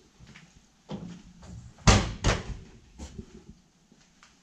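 Footsteps and knocks on the metal floor and door frame of an empty passenger rail car, with two loud knocks close together about two seconds in and a few lighter ones around them.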